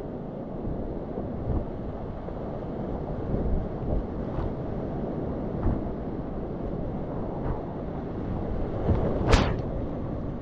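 Whitewater rapids of an alpine river at flood stage, a steady heavy rushing, heard from a kayak in the middle of the current. A few splashes come through it, with one loud sharp splash about nine seconds in.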